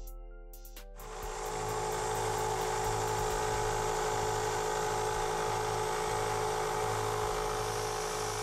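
A Central Machinery bench belt sander starts running about a second in and runs steadily, with a faint regular pulse. A cast-aluminium throttle body is held against the belt to grind its tabs down.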